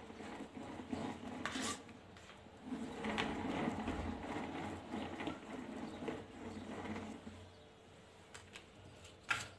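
Cake turntable being turned while a plastic scraper smooths whipped cream around the cake's side: an uneven rubbing, rumbling noise in stretches. A sharp click comes near the end.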